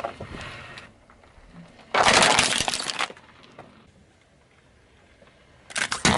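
A car tyre crushing small objects on asphalt: a burst of crunching about two seconds in, and near the end the cracking of a hard plastic toy under the tyre.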